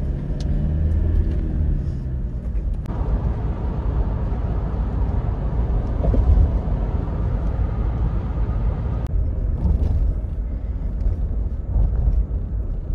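Car driving, heard from inside the cabin: engine and tyre rumble, the engine note rising and falling as the car pulls away, then about three seconds in an abrupt switch to fuller, steadier road and wind noise at highway speed, which drops back about nine seconds in.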